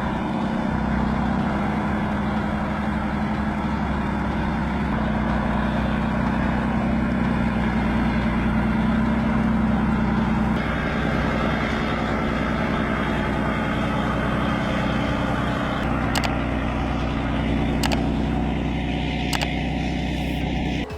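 Heavy vehicle engine running steadily, its sound changing about halfway through, with three sharp clicks or knocks near the end.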